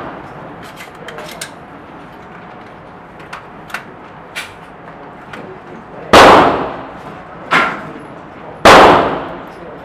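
AR-15 rifle firing three shots in the second half, the first and last loudest, each ringing off the walls of an indoor range. A few faint clicks come before them.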